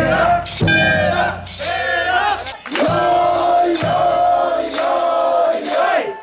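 A crowd of male festival bearers chanting in rhythm as they heave a mikoshi portable shrine, with a metallic jingling over the calls.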